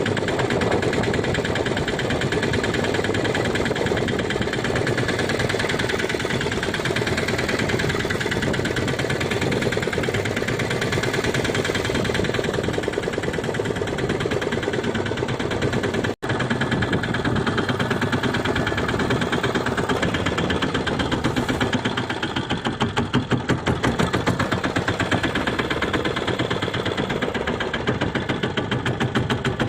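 Fishing boat's engine running steadily with a rapid, even chugging beat, broken by a momentary dropout about sixteen seconds in.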